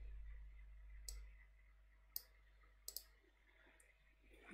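Faint, sharp computer mouse clicks over quiet room tone: one about a second in, another a second later, then a quick double click near three seconds.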